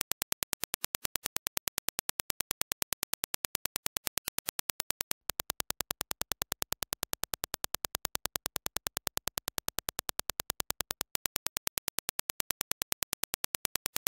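Dirac impulse test signal: a rapid, even train of sharp clicks, about ten a second. From about five seconds in, the clicks are heard as reproduced by Grado SR325X headphones, then the reference impulse clicks return near the end.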